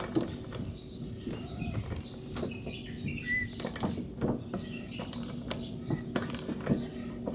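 Irregular metallic clicks and scrapes of a socket and hand tool working a car's stubborn front-wheel axle nut loose at the hub, with short high chirps and a steady low hum behind.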